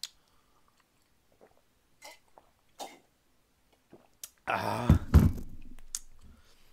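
A man eating: a few soft mouth clicks and chewing sounds, then, a little over four seconds in, a loud wordless vocal sound lasting about a second and a half.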